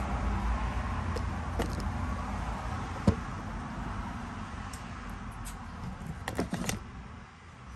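Light clicks and clinks of distributor parts and ignition wires being handled on a metal workbench: a sharp click about three seconds in and a quick cluster of clicks near the end, over a steady low rumble.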